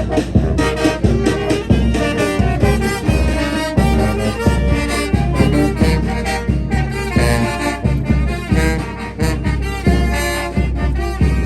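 A Mexican brass band (banda) playing: brass instruments carry the melody over a steady bass line and a regular drum beat.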